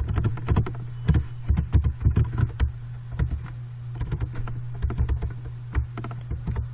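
Typing on a computer keyboard: a run of irregular key clicks over a steady low hum.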